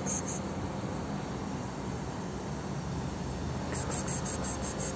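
Rapid high-pitched insect chirping, about seven pulses a second, starting near the end over a steady low background rumble.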